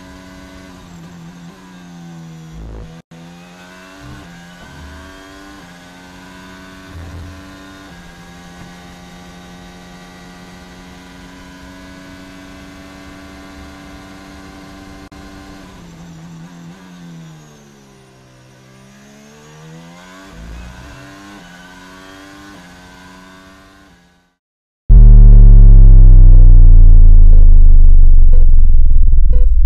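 Formula 1 car engine at racing revs, holding a high steady pitch for long stretches, with quick gearshifts in the first few seconds. About 17 s in the pitch drops through downshifts and climbs back up through the gears. The engine cuts off near the end, and a much louder, deep sound effect with falling pitch follows.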